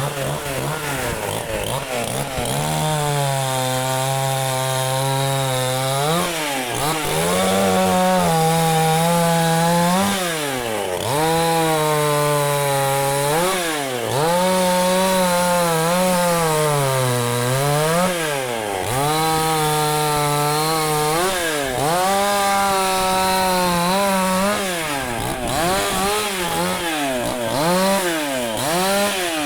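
Dnipro-M two-stroke petrol chainsaw cutting walnut branches: the engine revs up and drops in pitch under load again and again, every two to four seconds, as the chain bites into the wood.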